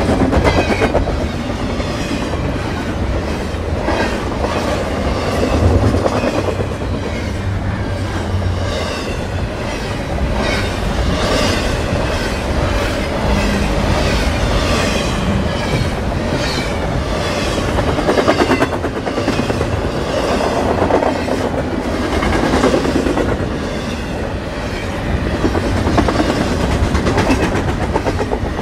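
CN double-stack intermodal freight train rolling past close by: a steady rumble of steel wheels on the rails, with a regular clickety-clack as each car's wheel sets pass.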